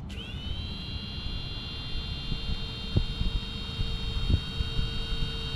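Diatone Roma L5 five-inch FPV quadcopter's motors spinning up and then running steadily with a high-pitched whine. Wind buffets the microphone, with a couple of thumps about three and four seconds in.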